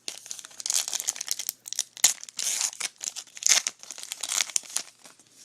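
A trading card pack's wrapper being torn open and crinkled in the hands, a run of quick papery crackles and tears.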